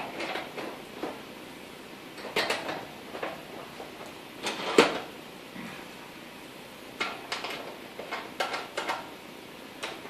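Scattered metallic clicks and clinks from a garage door's metal hinge and its screws being handled by hand, in small groups with pauses between, the loudest about halfway through.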